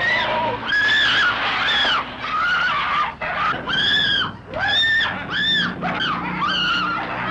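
A woman screaming over and over in short, high-pitched shrieks, each rising and falling in pitch, about nine in quick succession, over a low steady drone.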